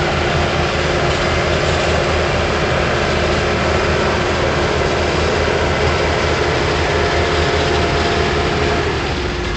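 Bulldozer's diesel engine running steadily and loudly, with a deep, even rumble.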